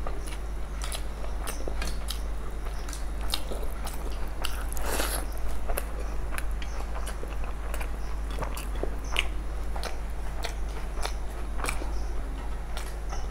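Close-miked eating sounds: chewing and many short mouth clicks as people eat masala fried rice and egg curry by hand, with a few crunchy bites and a denser patch about five seconds in.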